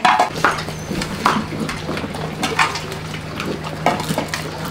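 Several puppies eating wet food from a shallow metal pan: lapping and chewing, with irregular small clicks and scrapes against the pan.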